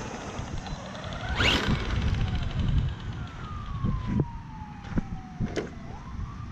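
Helion Avenge 10MT RC monster truck's electric motor and drivetrain whining as it is driven on dirt. There is a short surge of throttle about a second and a half in, then a long whine that falls steadily in pitch as the truck coasts, rising again near the end. A few sharp knocks sit over the low rumble and scratching of the handheld camera.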